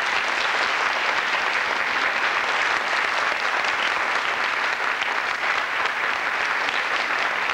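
Audience applauding: many people clapping in a dense, steady wash of sound.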